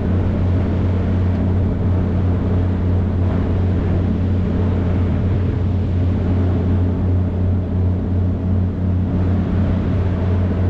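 Boat engine idling steadily: a low, even drone.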